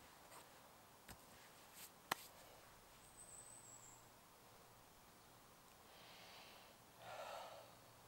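Near silence: a few faint clicks and one sharp crack about two seconds in, then a long breathy sigh from a man near the end.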